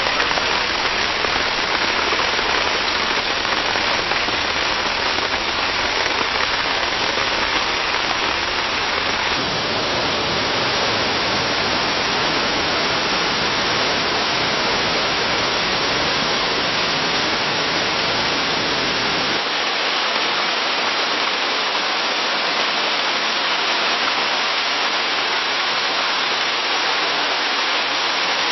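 Steady rain falling in a forest, a dense even hiss. The rain changes character abruptly twice, about a third and about two thirds of the way through, as one recording gives way to the next.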